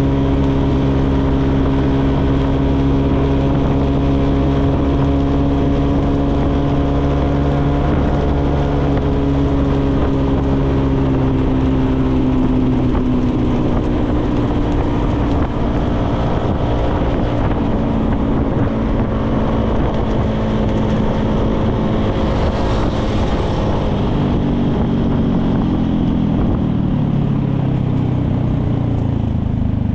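A 125 cc motorcycle engine running at a steady cruising speed. Over the second half its pitch falls gradually, then more steeply near the end as the bike slows down.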